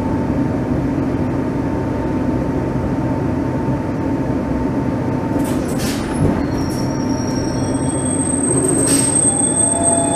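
Stockholm metro train running slowly along a platform and braking to a stop, with a steady rumble. High thin wheel and brake squeals come in over the second half, and there are a couple of short hisses.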